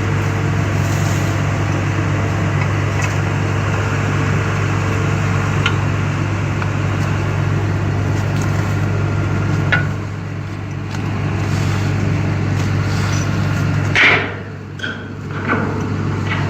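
A machine running with a steady low hum, with a couple of sharp metal clinks from parts being handled. Short bursts of voices come in near the end.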